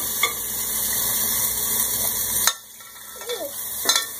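Eggs frying in a pan, a steady sizzle that cuts off abruptly about two and a half seconds in, followed by a brief voice and a few light clicks near the end.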